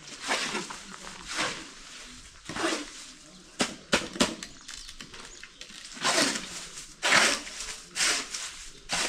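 Wet concrete being mixed by hand with a shovel: repeated scraping strokes, roughly one a second, with a few sharp clicks near the middle.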